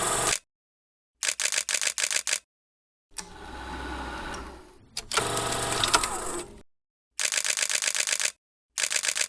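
Film projector sound effects: short bursts of rapid, even mechanical clatter, each a second or so long and cut off abruptly, with silent gaps between them. In the middle there is one smoother whirring stretch that swells and fades, followed by a longer run of clatter.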